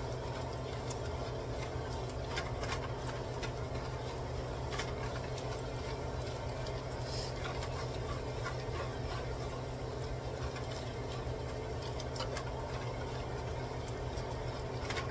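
Diced bacon sizzling in its own fat in a pot, with scattered small crackles and pops as it browns and renders. A wooden spatula stirs and scrapes the pan, and a steady low hum runs underneath.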